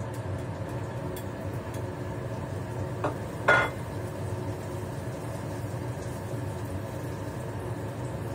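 Steady hum of a kitchen range hood fan while chopsticks stir minced garlic frying in oil in a pan, with two ringing clinks about three seconds in, the second one louder.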